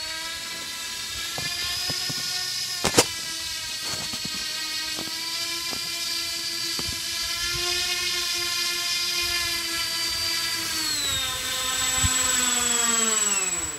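Twin electric motors and propellers of a Freewing OV-10 Bronco radio-control model running on the ground, a steady whine that drops in pitch about eleven seconds in and then winds down sharply at the end. A single sharp knock about three seconds in.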